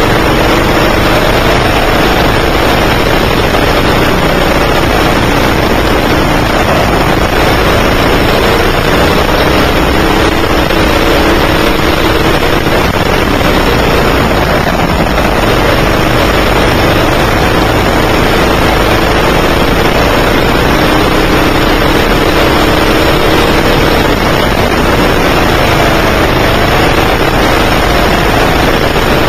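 Engine of a 9 hp indoor racing kart heard close up from on board, running hard under a heavy rush of noise, its pitch rising and falling as the driver works the throttle through the corners.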